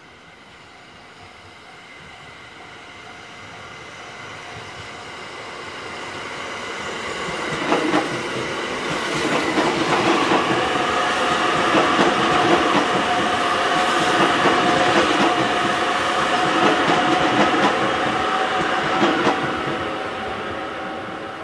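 E655 series 'Nagomi' electric train approaching and passing close by: a rumble that grows steadily louder, then wheels clicking over rail joints as the cars go past, fading again near the end.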